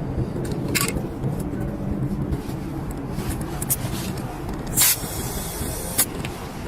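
Short hisses of air, three brief bursts with the loudest about five seconds in, over a steady low rumble.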